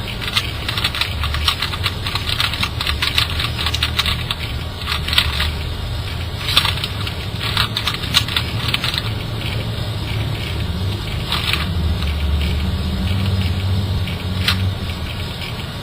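Plastic clicking and scraping of a small Mini C speedcube being handled and turned, many irregular sharp clicks over a steady low hum.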